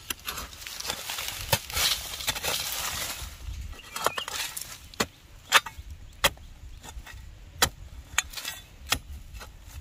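A series of sharp knocks and clicks at uneven intervals, about ten in all, over a rustling hiss during the first three seconds.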